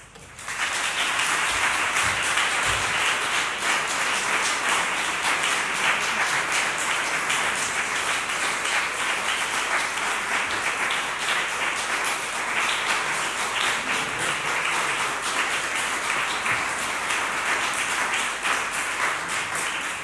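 Audience applauding: dense, steady clapping that starts suddenly about half a second in.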